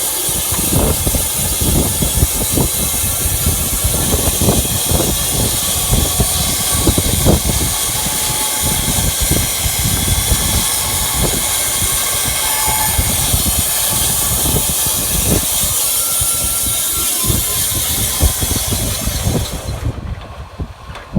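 Wood-Mizer LT15 Wide bandsaw mill running with its blade cutting through an elm burl: a loud, steady hiss over a rumble with irregular knocks. Near the end the high hiss cuts off suddenly and the level drops.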